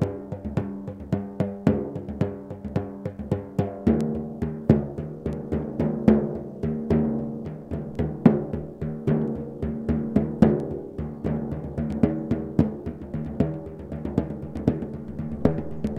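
Large hand-played frame drums struck in a rapid, continuous stream, their skins ringing with low, sustained pitched tones that blend into a hum under the strikes. The pitch of the ringing changes about four seconds in as the hands move to a different drum.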